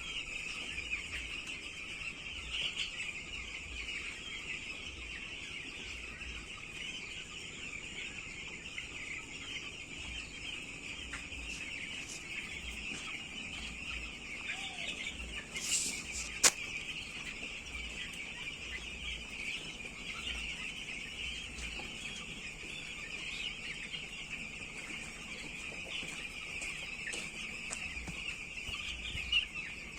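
A flock of broiler chickens calling together in a steady, dense chorus of overlapping chirps and clucks. A single sharp click comes about sixteen seconds in.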